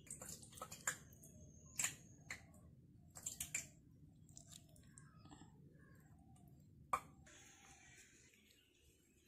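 Scattered light clicks and taps of a tiny steel spoon against a small clay pot as potato masala is scooped out and served, the sharpest click about seven seconds in, over a low steady background hum.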